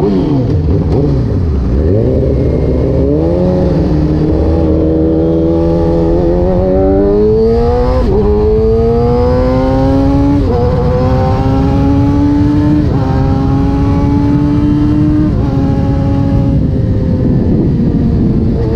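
Kawasaki ZX-10R's inline-four engine running at low, varying revs, then accelerating hard about six seconds in and upshifting four times, the pitch dropping sharply at each shift and climbing again, before settling into a steady cruise near the end.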